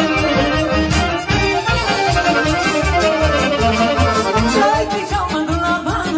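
Serbian folk dance music led by an accordion, playing a lively melody over a steady beat.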